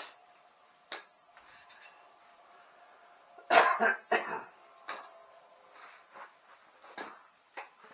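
A person coughs, twice in quick succession, about halfway through. A few light clicks and knocks are scattered before and after the coughs.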